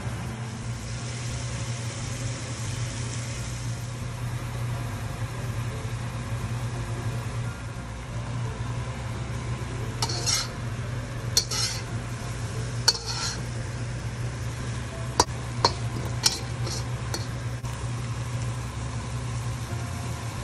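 Food frying in a pan with a steady low sizzle, stirred with a utensil. A run of sharp scrapes and clicks against the pan comes about halfway through, over a steady low hum.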